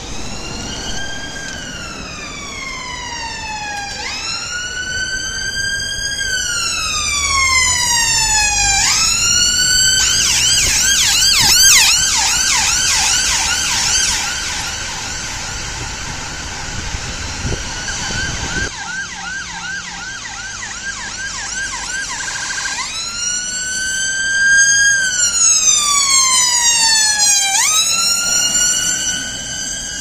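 London ambulance's electronic siren. It runs a slow wail that rises quickly and falls slowly, about four seconds a cycle, switches to a fast yelp about ten seconds in, and goes back to the wail about thirteen seconds later.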